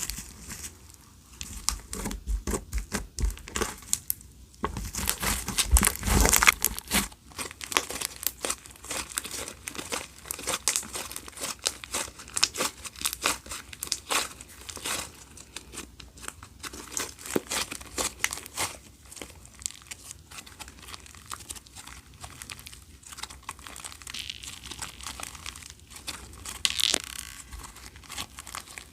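Clear slime being squished and stretched by hand: a dense run of sticky clicks and crackles, busiest about five to seven seconds in.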